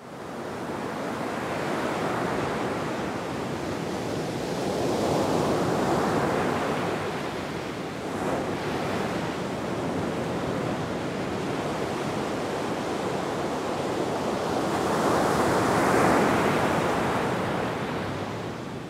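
Sea waves washing onto a shore, a steady rushing that swells and fades slowly, loudest about five seconds in and again about sixteen seconds in.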